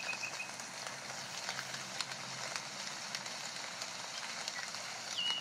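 Steady crackling hiss peppered with faint clicks, a background ambience bed. A short high note slides down near the end.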